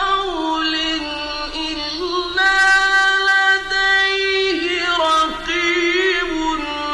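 A single voice chanting the Quran in melodic tajweed style, holding long drawn-out notes that step between pitches. The notes waver in quick ornaments a little past the middle.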